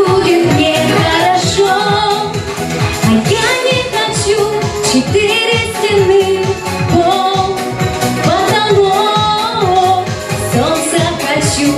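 A song being performed: a singing voice carrying a melody over pop-style backing music with a steady beat.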